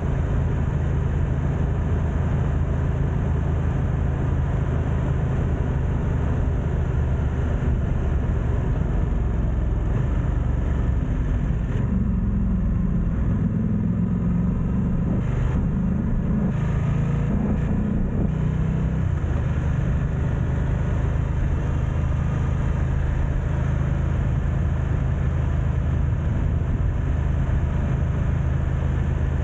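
BMW F900XR's parallel-twin engine running at low road speed, a steady deep note that shifts for several seconds around the middle, with wind noise on the camera's built-in microphones.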